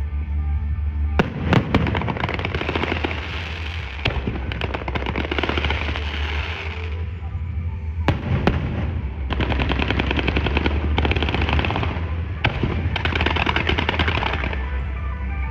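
Fireworks going off: long runs of rapid, dense crackling with a few sharper single bangs between them.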